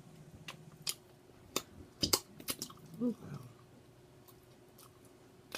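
A person chewing a spicy chicken sandwich: wet chewing with scattered sharp mouth clicks and smacks, bunched together around two seconds in, and a short hum about three seconds in.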